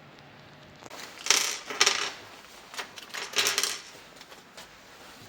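Small metal hardware clinking and rattling as it is handled, in two bursts: about a second in and again around three seconds in.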